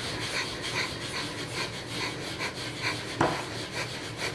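Kapalbhati (fire breath): rapid, rhythmic forceful exhales through the nose, about three a second, each a short sharp puff of air.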